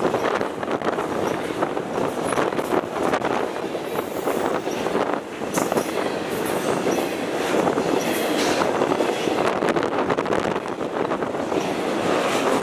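Intermodal freight train's cars passing: a steady rumble of steel wheels on rail, broken by many irregular clanks and rattles.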